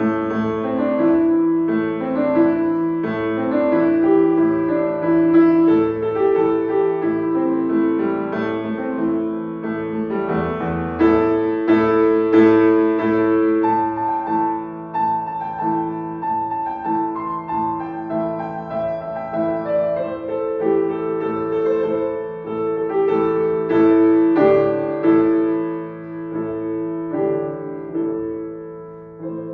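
Piano playing a concert piece inspired by classical Thai music, with sustained chords over a repeated low note and a melody above. It grows briefly quieter near the end.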